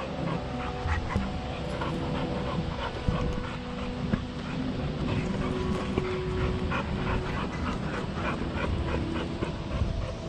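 A dog panting in quick, repeated breaths.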